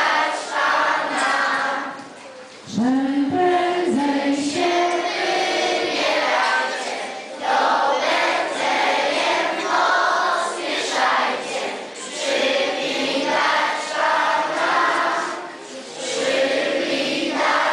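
A large group of children and adults singing a Christmas carol together, phrase by phrase, with short breaks between the phrases.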